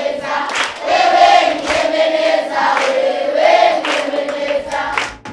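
A large group of children singing a song together in unison, with hand claps on the beat a little faster than one a second. The singing and clapping break off just before the end.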